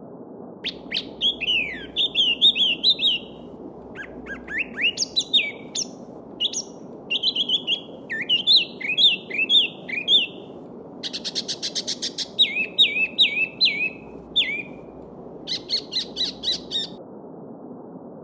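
A small songbird singing several phrases of quick, repeated down-slurred whistled notes, with short pauses between, over the steady babble of a shallow stream. The song stops about a second before the end.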